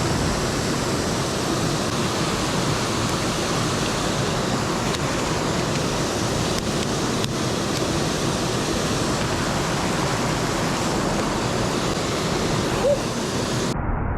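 Rushing water of a mountain stream, a steady, loud wash of noise. Near the end it abruptly turns duller, its hiss cut off.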